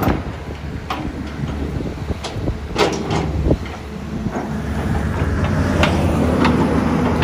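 XCMG XE215C hydraulic excavator's diesel engine and hydraulics running under load as the boom lifts and swings, the drone growing louder over the second half. Sharp knocks are scattered through it.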